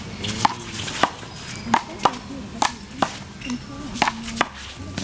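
A one-wall handball rally: the small rubber ball is struck by hand and smacks off the concrete wall and court, about nine sharp smacks in five seconds at uneven spacing.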